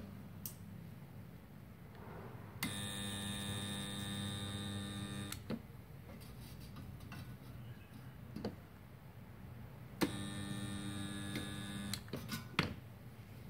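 Portable 2.5 kVA mini spot welder's transformer humming twice, for about three seconds and then about two, as the lever clamps the electrodes and current flows, with a sharp click as each starts or stops. The two 1 mm steel sheets, 2 mm together, are too thick for this welder and do not fuse.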